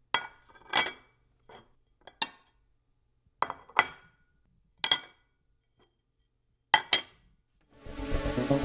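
Glass clinking: about eight sharp strikes in irregular pairs and singles, each ringing briefly. Music starts near the end.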